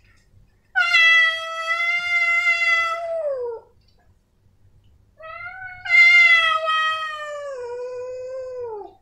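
Male cat giving two long, drawn-out meows a couple of seconds apart, each sliding down in pitch at the end.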